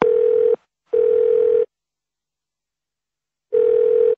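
Telephone ringing tone heard down the line by the caller, in a double-ring pattern: two short steady rings, a pause of about two seconds, then the next pair begins near the end. The call is ringing through and has not yet been answered.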